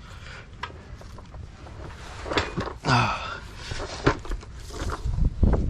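Scattered light knocks and clinks as the rear sway bar and its bolts and washers are handled under the car.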